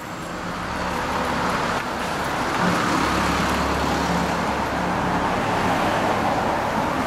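2006 Kawasaki Ninja 250R's parallel-twin engine idling steadily through an aftermarket r's gear WYVERN muffler, under a rushing noise that grows louder over the first couple of seconds.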